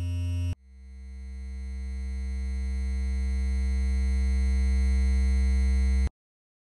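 Electronic drone of steady, held tones with a strong low bass note. The first drone breaks off about half a second in, a new one swells up gradually, then cuts off abruptly near the end.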